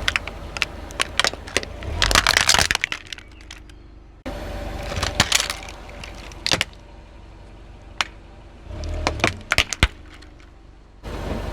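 A car tyre rolling over and crushing brittle objects: clusters of sharp cracking and crunching over the low rumble of the car, with the loudest, densest crunching about two to three seconds in. The background changes abruptly about four seconds in and again near the end, as separate crushing clips follow one another.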